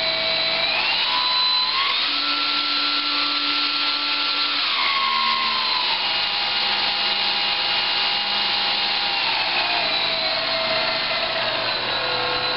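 Brushless electric motor of a ParkZone Super Decathlon R/C plane spinning a Master Airscrew 8x6 three-blade propeller on the bench, running smoothly: a steady whine over a rush of prop wash. The pitch steps up twice in the first two seconds, then steps down about five seconds in and again near ten and twelve seconds as the throttle is eased back.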